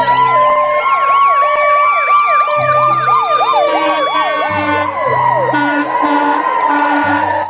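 Ambulance sirens sounding together: one long wail that rises and then holds, with a fast yelp sweeping up and down over it. The sound cuts off suddenly at the end.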